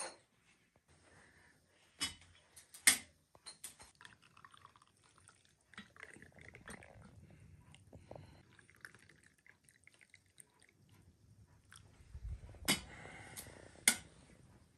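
Tea being poured from an aluminium kettle into small glass tea glasses on a metal tray, with a faint trickle in the middle and several sharp clinks of glass and metal, the loudest about three seconds in and more near the end.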